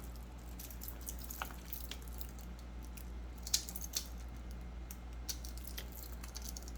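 Small scattered clicks and taps of a wristwatch being handled, the two sharpest about three and a half and four seconds in, over a steady low hum.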